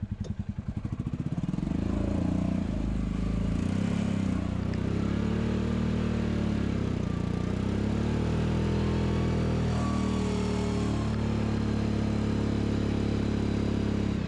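A UTV's engine goes from a pulsing idle to pulling away about a second in, then runs under load with its pitch rising and falling as the vehicle drives over rough grass.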